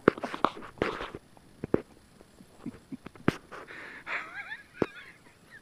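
Firecrackers going off in irregular sharp pops, a quick cluster in the first second and then single cracks further apart. A brief wavering cry is heard about four seconds in.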